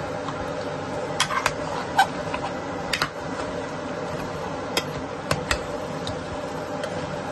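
A metal spoon knocking and scraping against a stainless steel saucepan while stirring a curry: about eight sharp clinks, the loudest about two seconds in, over a steady background hum.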